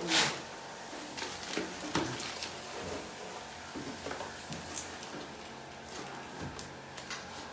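Work handling noises: a loud scraping knock at the start, then scattered light clicks and taps over a low steady hum.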